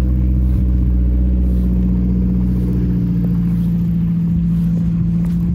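A loud, steady machine hum at one unchanging pitch over a deep rumble, growing a little stronger about a second and a half in.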